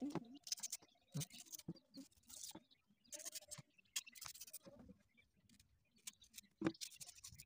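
Small knife cutting through the firm flesh of an unripe green mango, a few short, crisp scraping strokes with occasional sharp clicks.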